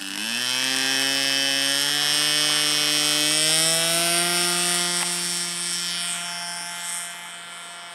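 Radio-control Sig Piper Cub model's motor and propeller throttling up for takeoff from grass: a buzzing whine rising in pitch over the first few seconds, then holding steady and fading as the plane climbs away.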